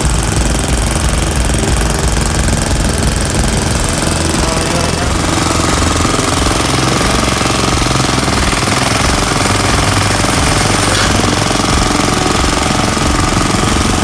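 Small single-cylinder engine of a garden tiller running, a loud, rapid chugging. Its note shifts slightly about five seconds in.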